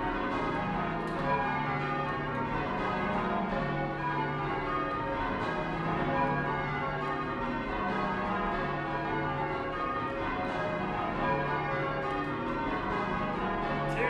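Change ringing on the ring of twelve church bells at St Sepulchre-without-Newgate, a 28-2-16 cwt ring with the tenor in C#. The bells strike one after another in a continuous, even stream of overlapping tones.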